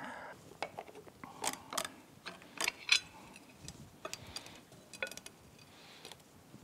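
Irregular light metallic clicks and taps of hand tools and loose bolts against a Yamaha F225 outboard's aluminium cylinder head and exhaust plate as the plate is worked loose. The sharpest clicks fall between about one and a half and three seconds in.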